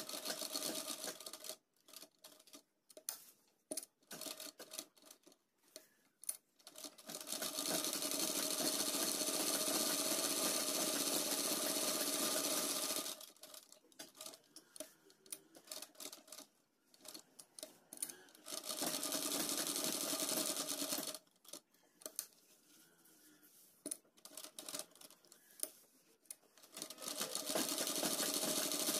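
Sewing machine stitching a half-inch seam that joins a cuff to a kurta sleeve. It goes in short stop-start spurts with pauses between, plus a steady run of about six seconds beginning about seven seconds in, a shorter run around twenty seconds, and another run starting near the end.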